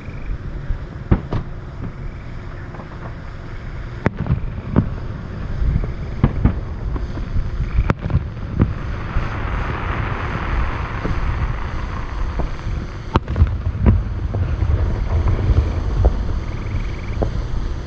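Fireworks shells bursting far off: an irregular string of booms and sharp reports, over a steady low rumble of wind on the microphone. A hissing rush swells and fades in the middle.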